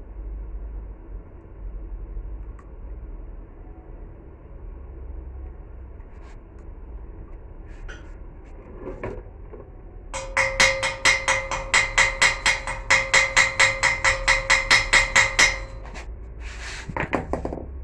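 Steel being struck in a fast, even series, about five or six blows a second for some five seconds, each blow ringing at the same pitch; a few scattered knocks come before and after.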